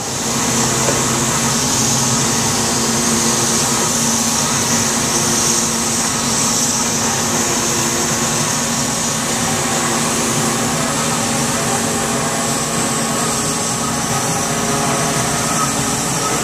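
A construction truck's engine and truck-mounted machinery running steadily at constant speed, with a loud, steady hiss over the hum.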